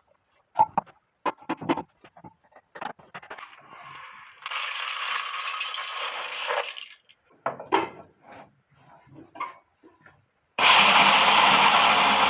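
Light clicking and rattling from the home-made corn mill, then, near the end, its angle-grinder motor switches on and runs loudly for about two seconds.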